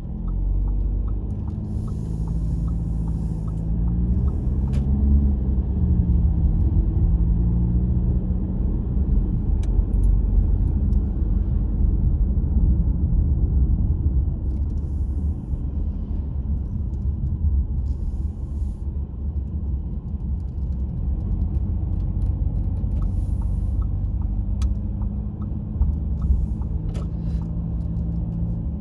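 A car driving on town roads: steady low engine and road rumble, with the engine note rising and falling early on and again near the end as it speeds up and slows.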